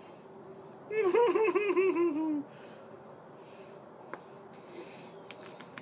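A person laughing: a quick run of about ten pulses, about a second in, falling in pitch and lasting about a second and a half.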